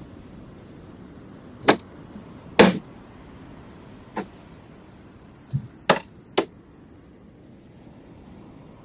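Sharp wooden knocks of a hinged wooden chest lid being shut and handled: about six knocks, the loudest about two and a half seconds in.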